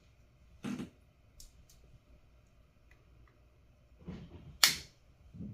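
A few separate sharp clicks and light knocks of small hand tools and parts handled on a workbench, the loudest a sharp snap a little past four and a half seconds in.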